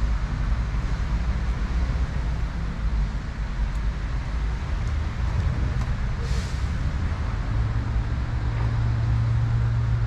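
Steady outdoor rumble and hiss. About three quarters of the way through, a low, steady motor drone comes in and holds.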